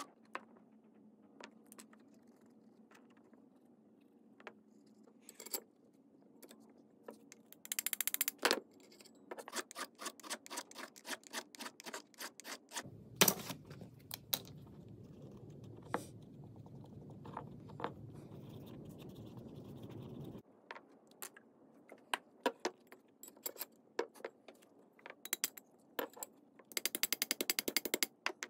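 Small hand-tool sounds on steel: a needle file scraping a Galil rifle bolt's locking lug in short strokes, taking down the bright contact marks to fit the bolt to its receiver, with scattered clicks as the parts are handled. A steady low hum runs for several seconds midway. Near the end comes a quick run of light taps as a wooden mallet knocks the bolt home.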